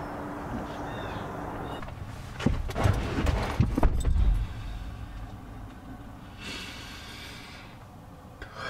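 A cluster of thumps and knocks as a person gets into a car and settles into the driver's seat, after a few seconds of steady outdoor background.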